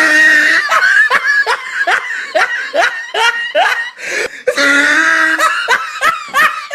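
Loud laughing: a held note, then a quick run of short ha-ha pulses about three a second, a second held stretch and a few more pulses near the end.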